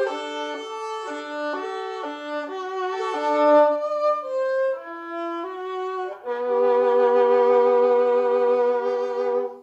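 Solo violin, bowed: a run of short, quickly changing notes, then a long held closing note for about three seconds that stops abruptly.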